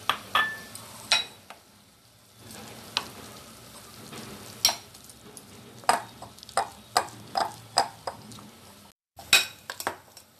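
Metal spoon stirring flour and milk into a thick batter in a glass bowl: a soft mushy rustle of the mix, broken by irregular sharp clinks as the spoon knocks and scrapes against the glass.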